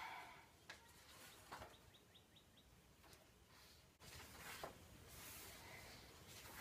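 Near silence: quiet room tone with a few faint soft rustles, and a brief run of faint high ticks about two seconds in.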